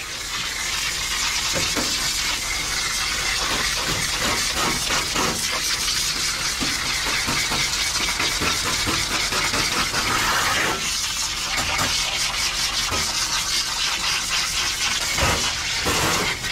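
Steady hiss of water spraying from a grooming-tub hose nozzle onto a wet husky's thick coat and the tub's grated floor as the dog is rinsed.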